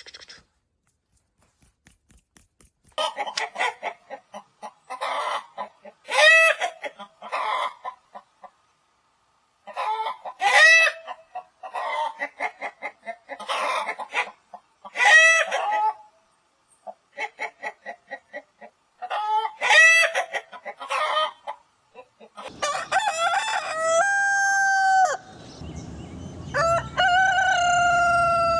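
Chickens clucking and cackling in bursts of quick clucks with short pauses, then a rooster crowing twice near the end with long, drawn-out calls.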